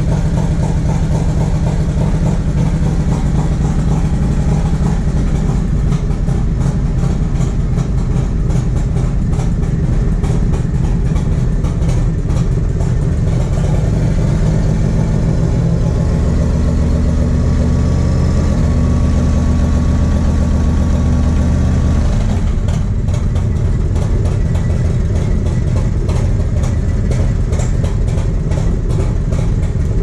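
1994 Harley-Davidson Road King's 80-inch Evolution V-twin, breathing through a CV40 carburetor and a Screamin' Eagle 2-into-1 exhaust, idling steadily. Past the middle the revs are held up for about six seconds, then drop back to idle at once. It runs cleanly, without the stumble and misfire it had before: a stuck-high needle pin in the carburetor has been corrected.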